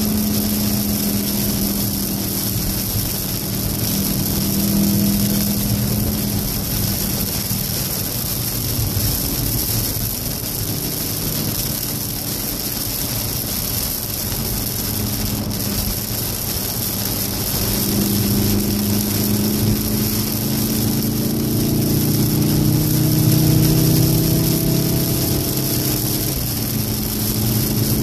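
In-cabin sound of a 2014 VW Golf VII R's turbocharged 2.0-litre four-cylinder driven hard on a wet track, over a steady hiss of heavy rain and tyre spray. The engine note falls away under braking in the first half, then climbs again under acceleration from a little past the middle.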